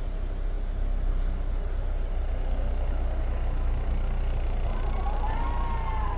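A steady low rumble, with a faint tone that rises and then falls in pitch near the end.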